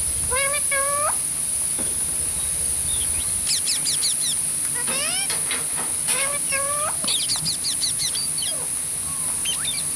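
Pet rose-ringed (ringneck) parakeet calling: a few rising squawks near the start, then several bursts of quick, high chirps and squeaks.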